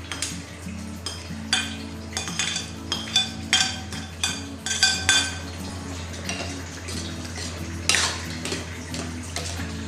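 A metal spoon clinks and scrapes against a plate and the rim of a stainless steel pot in a quick string of ringing knocks as chopped vegetables are pushed into boiling rice porridge. Then comes stirring, with one more sharp clink about eight seconds in, over a steady low hum.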